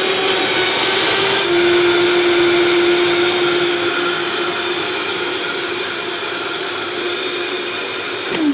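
Vitamix blender motor running steadily, blending ice, cucumber and leafy greens into a smoothie. It gets a little quieter after about four seconds, once the mixture has turned smooth. It winds down with a falling pitch as it is switched off at the end.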